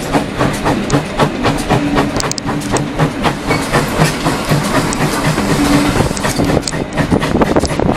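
Railway carriage wheels running over rail joints: a fast, steady clickety-clack, with a low hum from the moving train beneath it, heard through an open carriage window.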